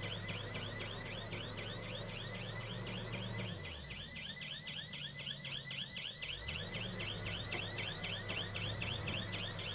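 A rapid electronic warbling alarm, about five chirps a second, over a low machine engine hum. The hum drops away and comes back up in the middle.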